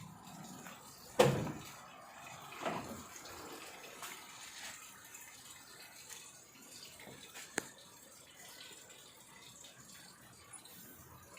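Faint water splashing and handling noises, with one sharp knock about a second in, a softer one shortly after and a small click later on.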